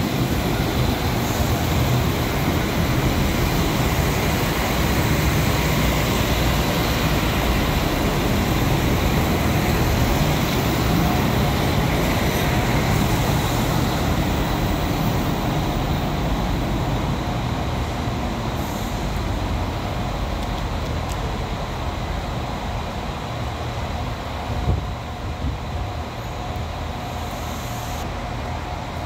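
Irish Rail 22000 Class InterCity Railcar, a diesel multiple unit, running in along the platform and slowing to a stop: a steady rumble of its underfloor diesel engines and wheels on the rails that grows quieter in the second half. A single short knock about 25 seconds in.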